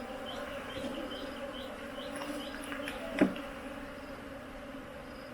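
A swarm of honeybees buzzing in a steady hum, with one sharp knock about three seconds in.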